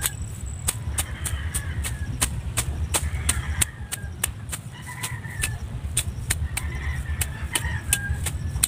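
Grass and weeds being pulled and cut by hand close to the microphone: a steady run of crisp snapping and tearing clicks, about three a second, over a low rumble.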